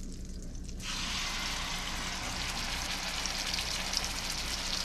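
Butter sizzling steadily in a hot stainless steel skillet, starting suddenly about a second in. A speckled trout fillet is laid into the pan partway through to saute.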